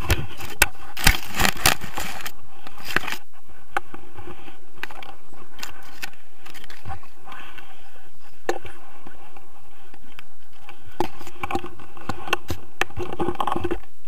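Scraping, rustling and sharp knocks of an action camera being handled against a paragliding harness, over steady noise. The knocks cluster in the first few seconds and again near the end.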